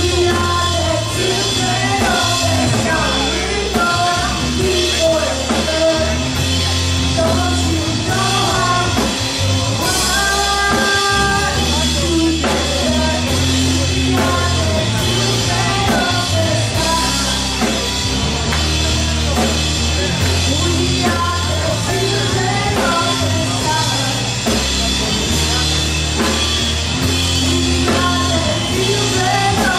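Live rock band playing: a woman sings lead over electric guitar, bass guitar and drum kit, steadily throughout.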